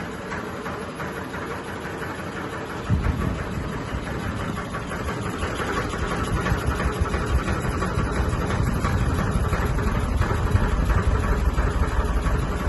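Sony ceiling fan running noisily while it wobbles and vibrates, with a steady whirring hum. About three seconds in a low, rapid rattling rumble starts suddenly and grows louder.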